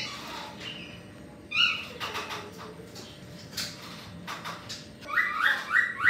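Cockatiel chirping: one rising call about a second and a half in, then a quick run of repeated rising chirps near the end. Scattered sharp taps in between fit a male tapping its beak on the cage, a courting behaviour of males.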